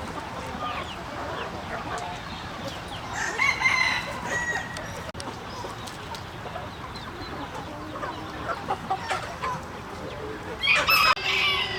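Chickens clucking, with a rooster crowing. The loudest calls come about three and a half seconds in and again near the end.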